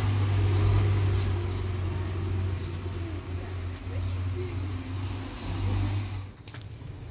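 A steady low hum with a small bird giving short, falling chirps every second or so. The hum cuts off about six seconds in.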